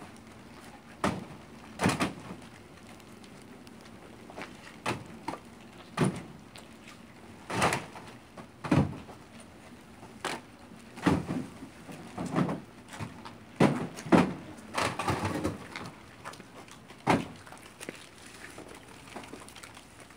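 Cases of cat food being set down and dropped into a pickup truck's bed: irregular thumps and knocks, some with a short scrape, every second or so.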